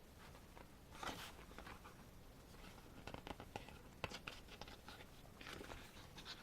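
Faint rustling and soft clicks of a photo book's pages being handled and turned, with short swishes about a second in, around three to four seconds in, and again near the end.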